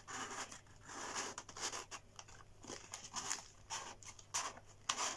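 Cardboard display box being handled as its lid is folded back and tucked into place: faint, irregular scraping and creasing with small taps, a little louder near the end.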